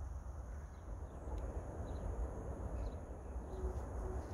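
Outdoor ambience: a steady low rumble with a few faint, short bird chirps.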